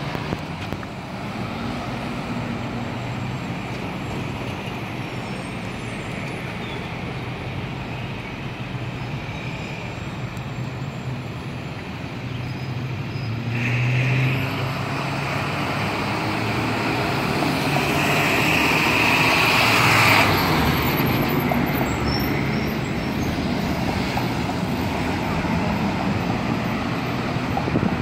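Street traffic at an intersection: cars, a school bus and a TTC low-floor streetcar passing, with a steady engine hum. A brief high squeal comes about halfway, and a louder high squeal lasting about two seconds cuts off sharply two-thirds of the way through.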